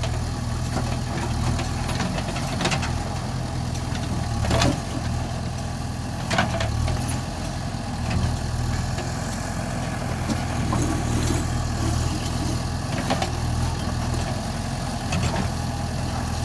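Backhoe loader's diesel engine running steadily, with a few sharp knocks scattered through it.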